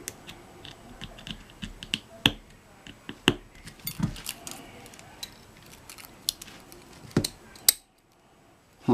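Small metal clicks and taps of a padlock and its tools being handled while trying to get a pin spring and plug out of the lock. Several sharper knocks stand out among them.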